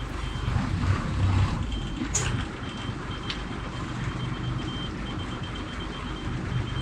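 A boat's engine running steadily under a haze of wind and water noise, with a high electronic beep that keeps repeating. There are two sharp knocks, about two and about three seconds in.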